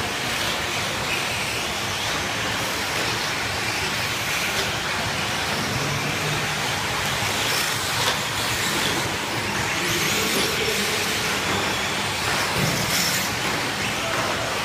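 A pack of 1/10-scale electric 4x4 short course RC trucks racing together: a steady mix of motor and drivetrain whine and tyres on the track, with a few sharp knocks from trucks hitting each other or the track.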